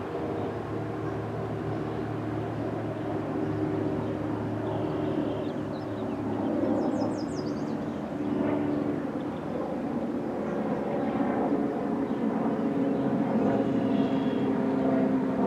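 Steady mechanical drone of several even tones, slowly growing louder, with a few short high chirps about seven seconds in.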